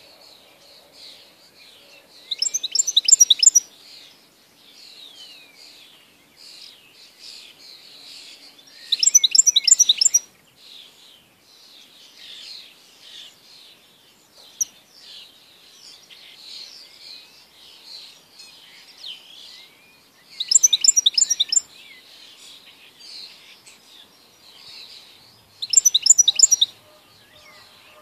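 European goldfinch singing: a run of fast, varied twittering, broken four times by a loud, rapid rattling trill about a second long.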